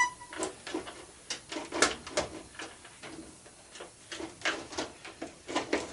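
Irregular clicks and knocks of hand tools on a washing machine's metal and plastic panels as it is taken apart for scrap, about a dozen spread through. A short electronic beep sounds right at the start.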